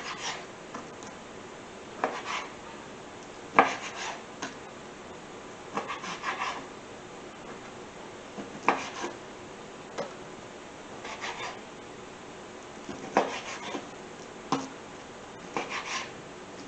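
Kitchen knife cutting raw chicken into bite-sized pieces on a plastic cutting board: short clusters of blade knocks and scrapes against the board every second or two.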